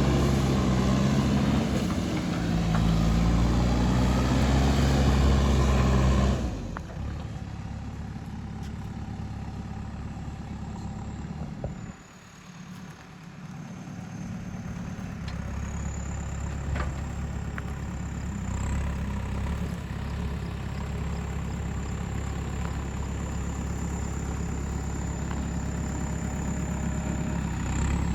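Diesel engine of an earthmoving machine running loudly with a steady pitch. About six seconds in it drops abruptly to a quieter, steady running sound, dips briefly near the middle, and carries on steadily after that.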